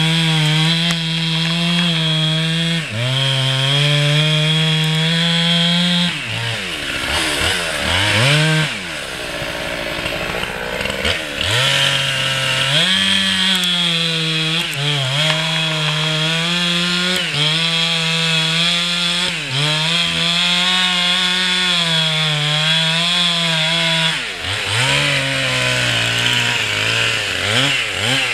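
Two-stroke chainsaw running at full throttle cutting into a beech trunk, its note dipping briefly now and then as the chain bites. About six seconds in, the revs fall away and swoop up and down for a few seconds before the saw revs back up and cuts steadily again.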